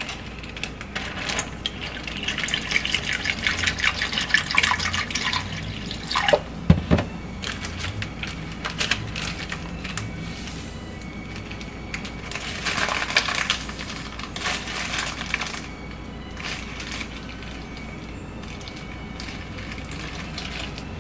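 Leftover chicken broth being poured into a plastic freezer bag, with the plastic rustling, in two bouts; a single sharp knock about seven seconds in.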